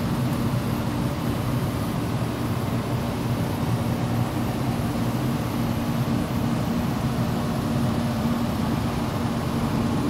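A furnace blower running with a steady low hum and a constant rush of air.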